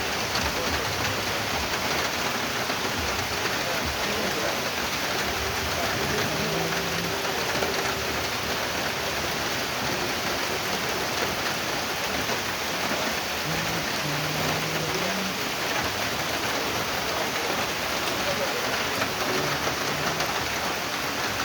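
Steady rain falling, a dense even hiss with no letup.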